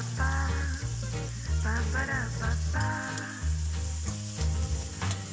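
Background music with a bass line and a melody, over the sizzle of chopped onion, garlic and tomato frying in a wok. A spatula stirs the pan toward the end.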